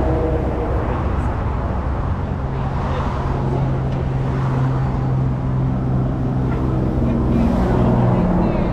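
A motor vehicle's engine running with a steady low hum over road traffic rumble, its pitch rising near the end.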